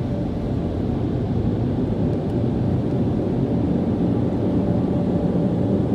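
Automatic car wash air dryer blowers running, a loud steady rush of air heard from inside the car's cabin.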